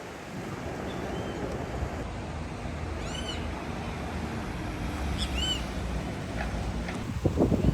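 Steady wash of sea surf and wind at the shore, with two short animal calls that rise and fall in pitch, about two seconds apart. A louder rush of surf or wind comes in near the end.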